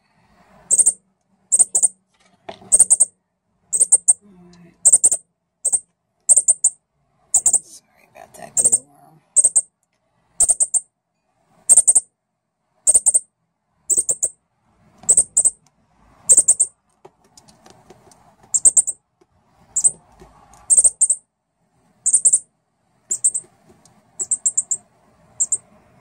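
Fledgling northern cardinal giving short, sharp, high-pitched chip calls, about one a second and sometimes two in quick succession.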